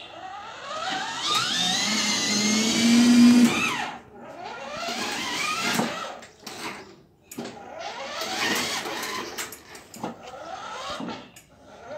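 Electric drive motors and gearboxes of a kids' battery-powered ride-on car whining, the pitch rising as it picks up speed, then dropping off and rising again several times.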